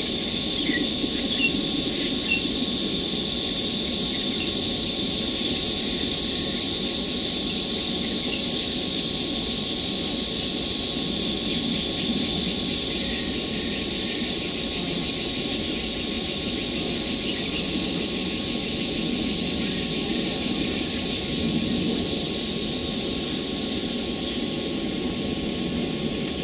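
Steady, shrill, high-pitched chorus of insects in the surrounding vegetation, a continuous hiss-like drone, with a faint steady lower tone and a low rumble beneath. Part of the chorus drops out about halfway through, and its highest part fades near the end.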